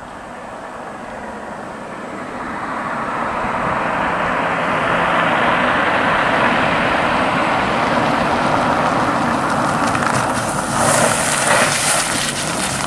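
A Ford Fairlane with a fuel-injected 5.0-litre 302 Windsor V8 drives toward the listener, its engine and tyre noise growing steadily louder. From about ten and a half seconds in, its tyres crunch over gravel as it pulls off the road.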